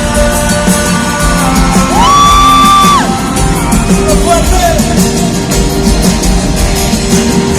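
Live band music in a large hall, with a loud high voice crying out about two seconds in: it slides up, holds for about a second, and drops away.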